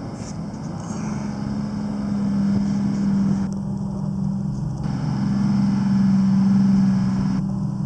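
TMS 300 mobile truck crane's diesel engine running steadily, growing somewhat louder toward the last couple of seconds.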